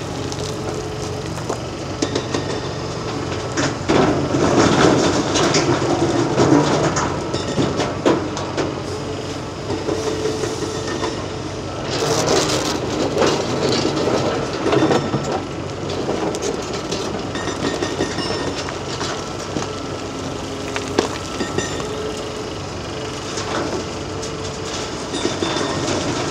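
Large hydraulic crawler excavator working in hard black Jurassic rock: its diesel engine and hydraulics run steadily while the bucket scrapes and crunches through rock, with louder bouts of clattering rock about 4 seconds in and again about 12 seconds in.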